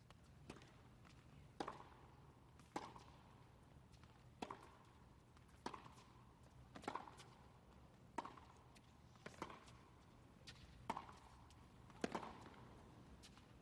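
A tennis ball struck back and forth by racquets in a baseline rally: about ten crisp hits, one every second or so, with fainter ticks of the ball bouncing between them.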